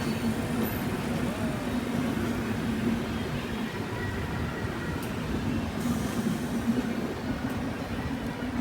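Diesel-hauled express train running past at speed: a steady rumble of wheels on the rails with a low hum held throughout.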